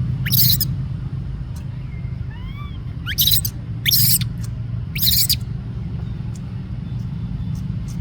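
Baby monkey calls: four short, harsh high screeches and one short rising squeak, over a steady low rumble.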